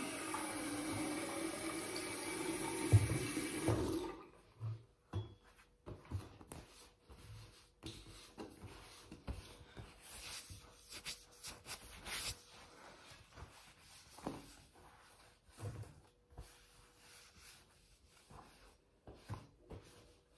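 Water from a bathroom mixer tap running into a ceramic washbasin, steady for about four seconds, then shut off. After that, a sponge rubs and wipes over the basin in short, irregular strokes.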